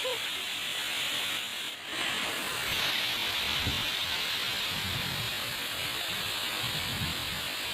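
Waterfall's steady rushing noise, with a brief dip about two seconds in.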